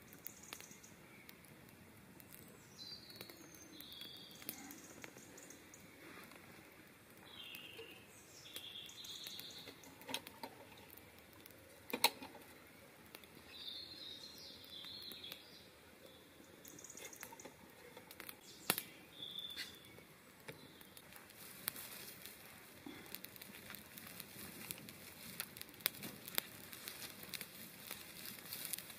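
Soft handling rustles and a few sharp clicks while a hurricane oil lantern is lit, with scattered faint high chirps in the background. From about three-quarters of the way in, a small twig campfire crackling densely.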